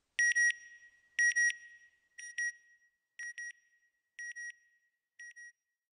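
Electronic beep sound effect: a high-pitched double beep repeated six times, about once a second, growing fainter, with a short echo trailing the first ones.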